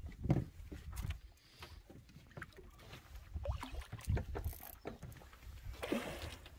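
Water slapping and knocking against a small boat's hull in irregular low thumps, with a splash from a hooked catfish thrashing at the surface about six seconds in.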